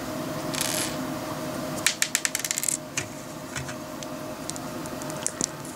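Small plastic LEGO pieces clicking together as they are handled and pressed into place, with a quick run of clicks about two seconds in and a few scattered clicks after.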